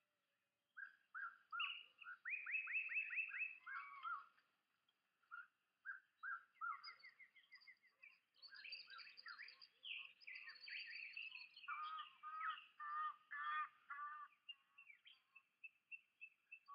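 Birdsong: a run of quick chirps and trills from small songbirds, with short gaps of silence between phrases.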